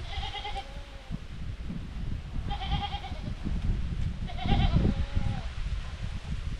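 A goat bleating three times in high, quavering calls, each under a second long and about two seconds apart, over a low rumble.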